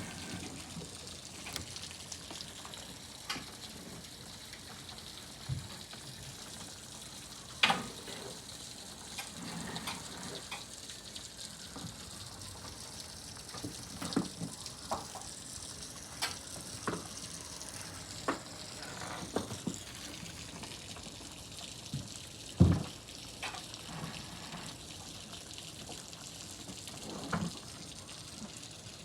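Steady rain falling, an even hiss with irregular louder drops tapping down, the sharpest about a quarter of the way in and again about three-quarters through.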